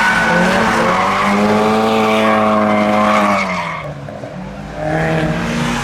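A car skidding, its engine held high in the revs and then backing off, with tyre noise; the engine note fades away about three and a half seconds in. A lower engine note comes in near the end.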